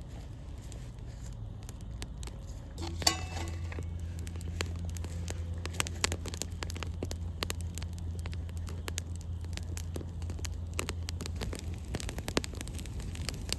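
Small campfire of dry sticks catching and crackling, with frequent sharp pops. A steady low hum comes in about three seconds in and fades near eleven seconds.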